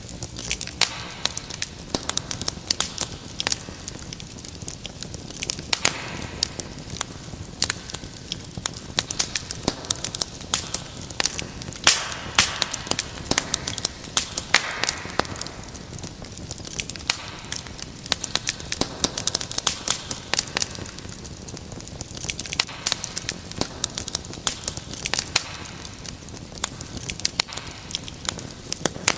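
Wood fire crackling: dense, irregular sharp pops and snaps over a steady low hiss.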